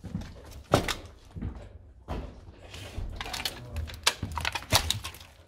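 Irregular knocks and thuds with clicks between them, the loudest about three-quarters of a second in.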